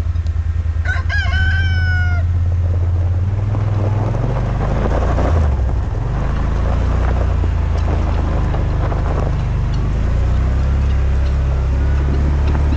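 All-terrain vehicle engine running steadily at low revs. A rooster crows once, about a second in.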